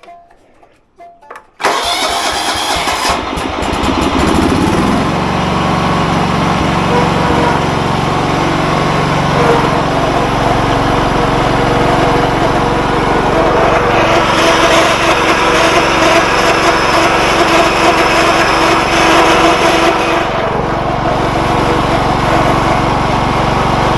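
John Deere riding lawn mower with hydrostatic drive, its engine starting abruptly about a second and a half in and then running steadily as the mower is driven. Midway a higher whine joins it for several seconds, then drops back: the rear-end noise the owner hears when the hydrostat is pushed wide open, which goes away when he lets off.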